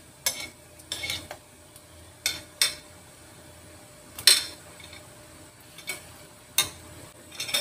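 A small wire-mesh strainer clinking and scraping against a plate as vegetables are pushed off into a wok of water: about ten sharp, irregular clinks, the loudest a little past the middle.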